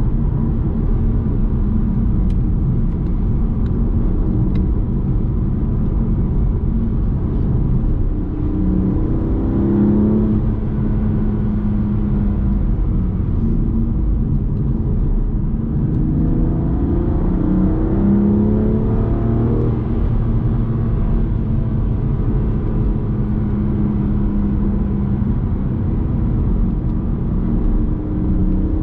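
BMW M2 Competition's twin-turbo straight-six running under way through a resonator-deleted exhaust, with a steady engine and road rumble. The engine note rises twice as the car accelerates, about eight seconds in and again about sixteen seconds in.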